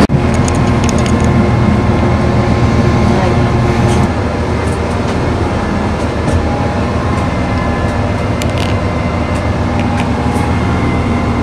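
Regional passenger train running, heard from inside the carriage: a steady low rumble from the wheels and running gear, with scattered light clicks and rattles.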